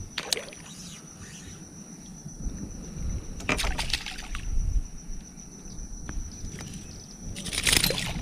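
A small hooked peacock bass thrashing and splashing at the water's surface beside a kayak as it is pulled in on the line: three short bursts of splashing, just after the start, about halfway through and near the end.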